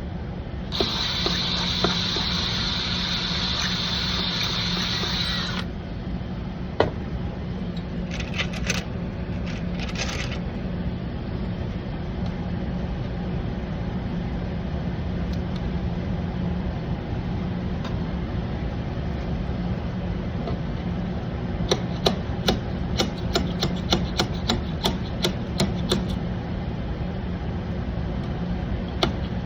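Tool work on a bus body over a steady machine hum. A loud hiss lasts about five seconds near the start, and a quick run of sharp clicks and taps fills the last several seconds.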